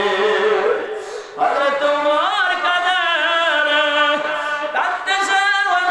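A man's voice chanting in long, held melodic lines that glide up and down in pitch, with a brief pause for breath about a second in.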